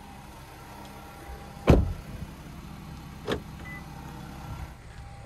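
A car door shutting with a heavy thump about two seconds in, followed by a smaller sharp click about a second and a half later, over a steady low hum.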